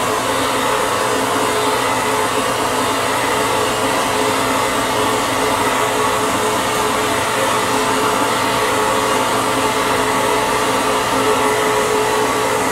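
Vapor blasting nozzle spraying a compressed-air and water-abrasive slurry onto an aluminum motorcycle rear hub: a steady, unbroken rushing hiss with a faint hum of steady tones under it.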